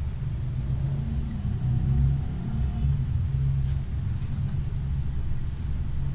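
Steady low rumble of background noise, with a few faint ticks about halfway through.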